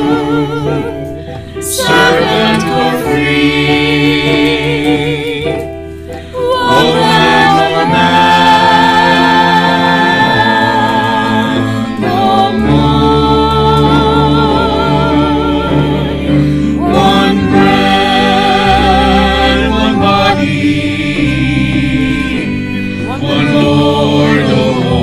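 Choir singing sacred music with instrumental accompaniment. The voices sing with vibrato over held low notes that change every second or two.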